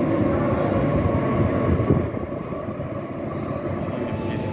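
ЕЖ3РУ1 (Ezh3) metro train running past the platform, a dense rumble of wheels and traction motors that drops in loudness about two seconds in as it moves away.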